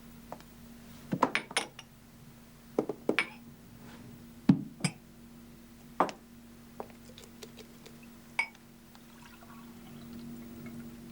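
Scattered sharp clinks and knocks of crockery and utensils, in small clusters with pauses between them, over a low steady hum.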